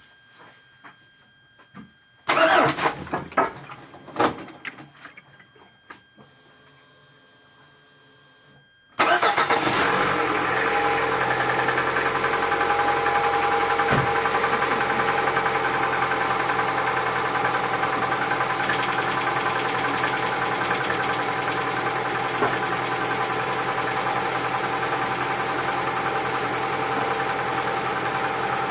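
A few clunks and rattles, then about nine seconds in a cold diesel truck engine, a Volvo FH's, starts and settles straight into a steady idle. It is being run from cold to listen for piston knock.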